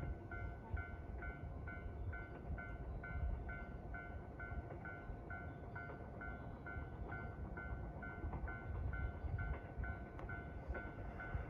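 Railway level-crossing warning bell ringing steadily, a two-note electronic clang about twice a second, over the low rumble of a 113 series train standing at the platform.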